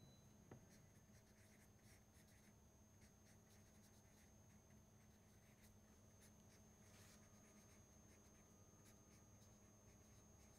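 Faint scratching of a felt-tip pen writing on paper, in short strokes, with a small click about half a second in.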